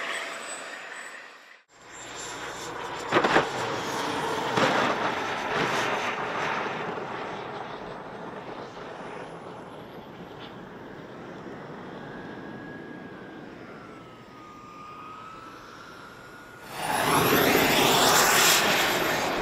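Small gas-turbine engines of large-scale RC model jets running with a steady rushing whine as the models come in to land. Near the end a turbine spools up, its whine rising steeply in pitch and becoming the loudest sound.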